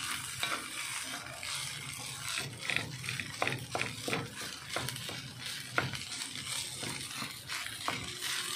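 Wooden spatula scraping and turning fried rice in an aluminium wok, in many short irregular strokes, over a steady frying sizzle.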